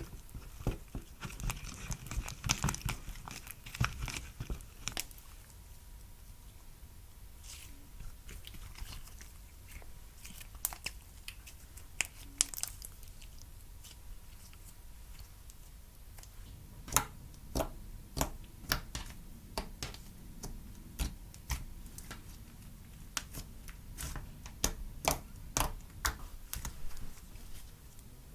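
Clear slime being squished and stretched by hand, giving irregular small crackling pops and clicks. They come thick in the first few seconds, thin out, then pick up again for the last ten seconds.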